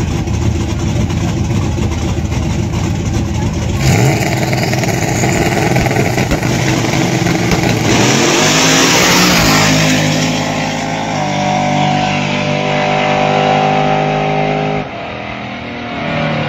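Two drag cars, one a Fox-body Ford Mustang, rumbling at the starting line, then launching about four seconds in and running hard down the strip at full throttle. The engine note climbs and steps up through the gears, loudest just after the launch, and fades near the end.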